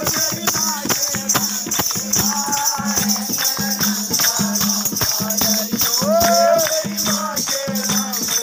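Live devotional bhajan music: a fast, steady beat of rattling hand percussion under a sung vocal line.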